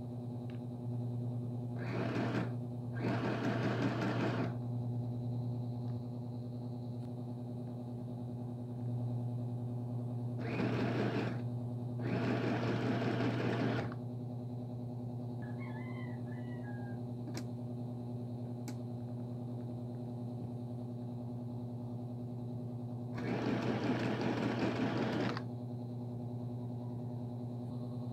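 Small electric sewing machine stitching through a webbing strap in five short runs, each one to two seconds long, over a steady low hum.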